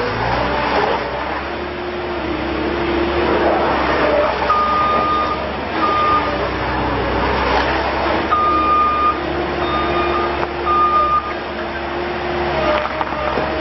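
Takeuchi TS60V skid steer's Perkins diesel running, its engine pitch rising and falling as the machine works. A back-up alarm beeps several times in the middle, in uneven on-and-off beeps, as the loader reverses.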